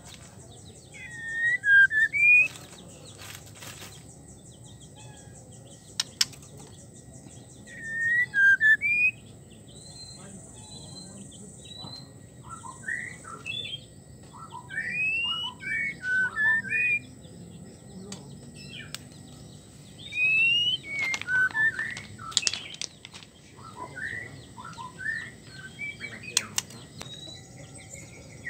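White-rumped shama calling: short phrases of quick, sweeping whistled notes every few seconds, with a longer run of them in the middle.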